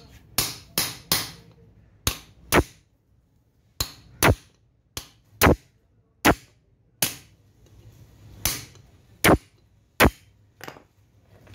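Hammer blows on a metal punch held against the centre hub of an alternator end frame, about fifteen sharp metallic strikes at an uneven pace, knocking the part out by hand in place of a puller.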